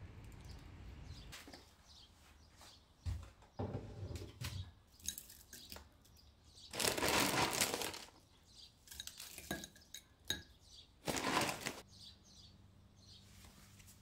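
Kitchen handling sounds: ceramic bowl and spoon clinking and knocking, with two louder rustling noises of about a second each, near the middle and a little later.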